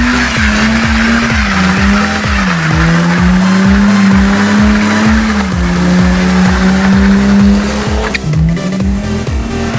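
Electronic music with a steady beat, over a car engine held at high revs and tyres squealing, typical of a burnout or drift.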